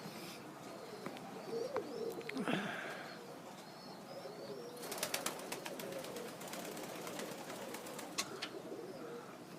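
Pigeons cooing softly, with wing flapping. From about five seconds in there is a run of light clicks.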